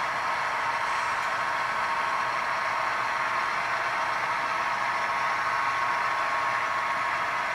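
Model train running on layout track: a steady whirring from the locomotives' motors and the wheels on the rails, with a faint steady hum.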